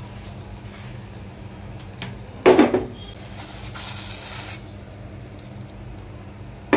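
Cookware being handled: a silicone spatula and nonstick frying pan working a rolled crepe onto a plate, with a loud dull knock about two and a half seconds in and another near the end, over a steady low hum.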